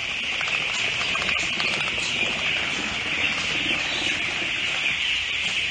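A house full of young broiler chicks cheeping all at once: a dense, steady, high chorus without a break.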